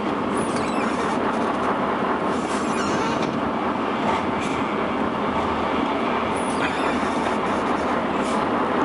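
Steady drone of a truck's engine and tyres at low speed, heard from inside the cab, with a few light rattles now and then.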